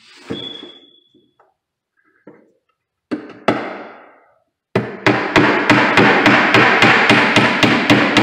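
Claw hammer driving nails into a new pine stair tread: two single knocks a little after three seconds in, then from about five seconds in a fast, even run of blows, about three a second, each ringing on into the next.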